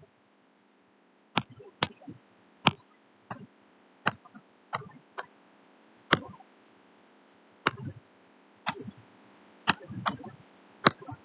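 Stylus tapping on a tablet screen while handwriting: a series of sharp, irregular clicks with short pauses between them.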